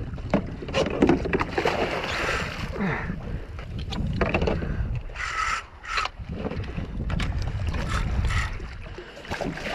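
Hooked fish splashing and thrashing at the surface beside a kayak, with water slapping the hull and wind buffeting the microphone.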